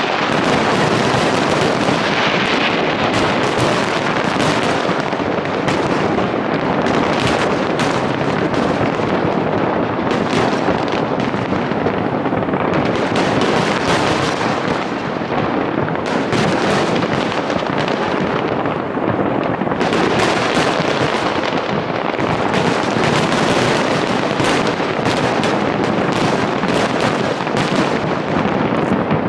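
Large fireworks display: a dense, unbroken barrage of bangs and crackling bursts overlapping one another.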